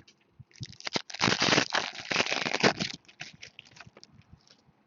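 Rustling and crinkling as trading cards and their packaging are handled close to the microphone: a dense, loud crinkling for about two seconds in the middle, with light clicks and handling noises around it.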